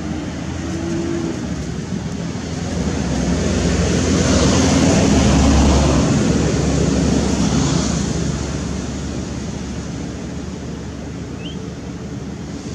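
A steady engine hum that swells to its loudest a few seconds in and then fades, like a motor vehicle passing.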